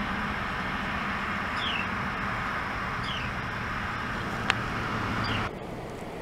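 Carolina wren giving short, high, downslurred chirps about every second and a half over a steady hiss, with one sharp click about four and a half seconds in; the hiss drops abruptly about five and a half seconds in.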